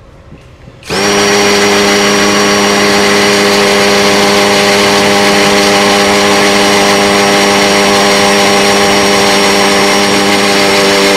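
Cordless drill in concrete (hammer) mode on its low speed, starting about a second in and running steadily as it bores into a concrete block: a loud, even motor whine.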